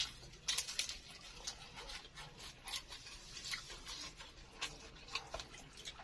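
Close-up chewing of crispy baklor, egg martabak filled with rice vermicelli: irregular soft crunches and crackles, several a second.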